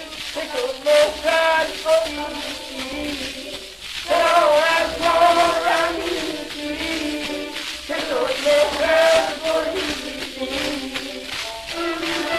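Music from a 1940s Persian 78 rpm shellac gramophone record, an old Iranian popular song with male vocal and instrumental accompaniment, its wavering melodic phrases breaking off and restarting about every four seconds.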